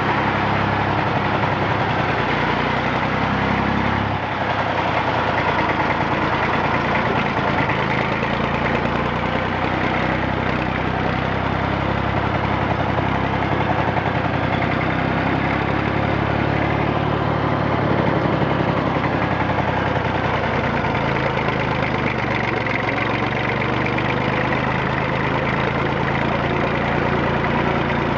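1959 Fordson Dexta tractor's three-cylinder Perkins diesel engine running steadily, with a brief dip in the engine note about four seconds in.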